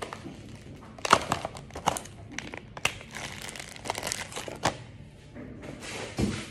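Plastic grocery packets crinkling and rustling as they are handled, in quick crackling bursts for about four seconds, then a dull thump near the end as a pack is set down on the counter.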